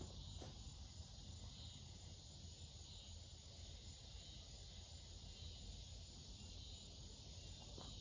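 Near silence: faint steady background hiss with a low hum, with no shots.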